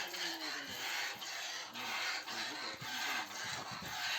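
Milk squirting into a pail in rhythmic hissing spurts, about two a second, as a Holstein Friesian cross cow is milked.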